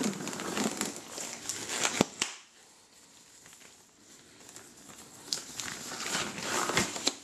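Latex gloves being pulled onto the hands: rubbery rustling and stretching, with a sharp snap about two seconds in. After a quiet pause, more rustling with a few small clicks near the end.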